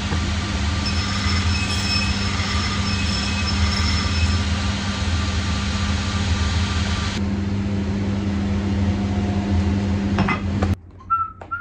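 Shoe finishing machine running with a steady hum while an axe blade is sharpened against one of its spinning abrasive wheels, a thin high whine over the motor for a few seconds. The high grinding noise drops away about seven seconds in, and the machine sound cuts off abruptly near the end, followed by a brief whistle.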